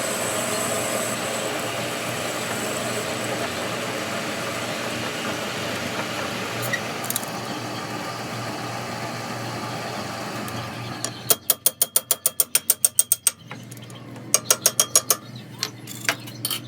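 A machine runs steadily with a low hum for most of the clip, then drops away. Two runs of rapid sharp clicks follow, about nine a second, with a few single clicks near the end.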